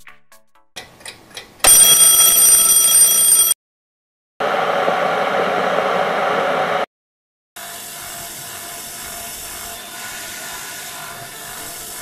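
A loud sound of several steady high tones, like an alarm bell, lasting about two seconds. After a short gap comes a boiling electric kettle's even rushing noise for about two and a half seconds. After another gap, a Salamander RP50PT twin-ended centrifugal shower pump runs with a quieter, steady hum.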